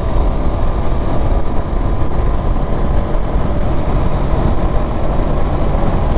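Honda CB500X's parallel-twin engine running steadily at highway speed, about 110 km/h, under a heavy rush of wind on the microphone.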